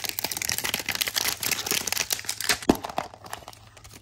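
Crinkly packaging of a Zuru 5 Surprise toy ball being torn and unwrapped by hand, a dense run of crackles with one sharper snap about two-thirds of the way in, then quieter handling.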